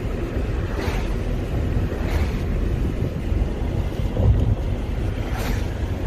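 Wind and road noise in a moving car, a steady low rumble, with three brief whooshes of vehicles passing in the other direction.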